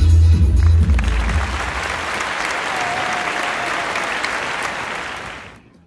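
Audience applauding as a drum performance on bass drum and snare ends; the last of the drum music dies away in the first second or so, and the applause fades out near the end.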